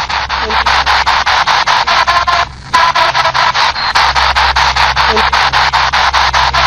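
PSB7 spirit box sweeping through AM radio stations: loud static chopped into rapid, even bursts several times a second, cutting out briefly about two and a half seconds in. The investigators take a fragment in the sweep for a voice saying 'nosotros te adoramos'.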